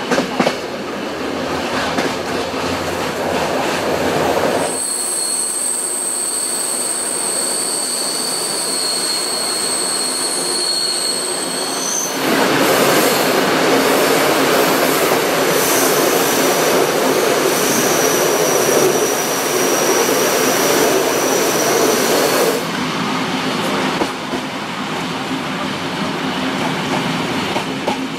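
Flåm Railway train running, heard from inside the carriage: a continuous rumble of the wheels on the track. A few seconds in, a high, steady squeal of steel wheels on the rails sets in and cuts off suddenly near the middle. The rumble then gets louder, with a fainter squeal for a few seconds.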